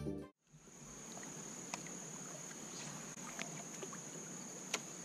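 Music cuts off right at the start. After that, a steady high-pitched insect drone of crickets or cicadas runs through, with a few faint clicks and knocks from the kayak and fishing gear.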